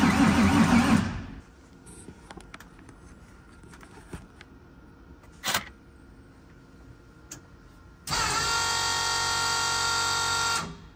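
A car engine being cranked by its starter: a loud cranking run stops about a second in. After a pause with a few faint clicks, a steady electric whine of the starter spinning sounds for about two and a half seconds near the end.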